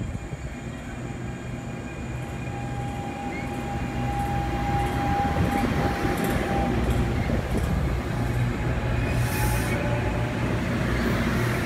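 New Jersey Transit commuter train running through the station, growing louder, with a thin steady whine for a few seconds in the middle and light clicks from the wheels later on.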